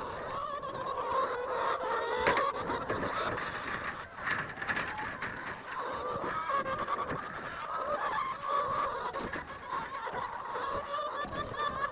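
A flock of laying hens clucking and chattering steadily, with scattered light clicks and knocks as eggs are set by hand into plastic egg flats.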